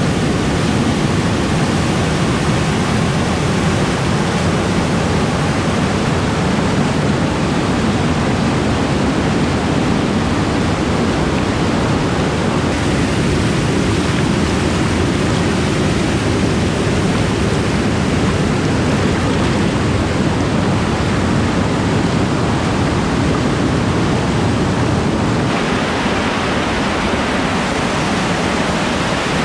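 Waterfall, a large volume of river water thundering down over rocks in a loud, steady rush. The sound's balance shifts about 25 seconds in.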